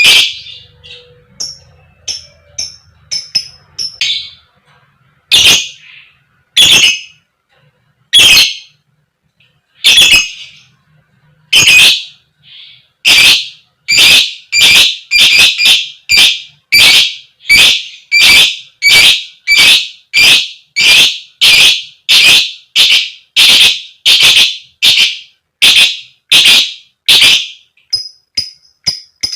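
Fighter lovebird giving loud, harsh, repeated 'koek koek' calls. A few come spaced out at first, then from about halfway through they run fast and even at about two a second. Fainter high chirps come near the end.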